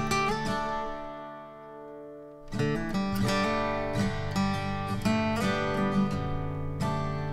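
Background music of strummed acoustic guitar. It thins to ringing notes about a second in, then comes back fuller with a bass line.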